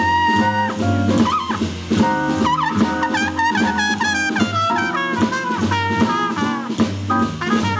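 Jazz trumpet solo over upright bass and drums. The trumpet holds one long note at the start, then breaks into quick runs with bent and sliding notes.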